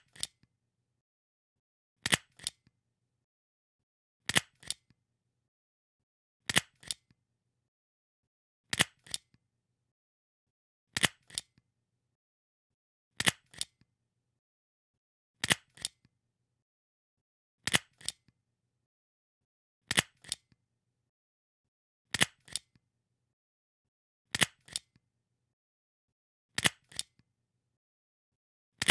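A stapler pressed over and over, about once every two seconds; each press gives a sharp click followed closely by a second, softer click.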